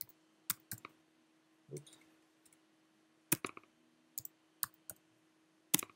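Computer mouse clicks and keyboard key presses: a dozen or so short, sharp clicks at irregular intervals, the loudest near the end, over a faint steady hum.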